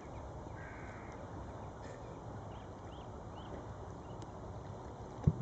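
A few faint, short bird calls over a steady low background rumble, with a single dull thump near the end.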